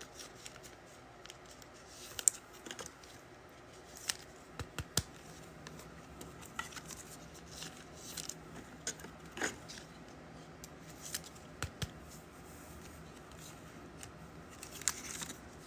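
Faint, scattered clicks, taps and rustles of trading cards and pack wrappers being handled and sorted.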